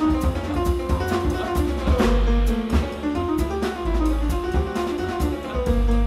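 Live jazz combo playing an instrumental passage: plucked upright double bass notes underneath, piano notes above, and drums with cymbal strokes keeping time.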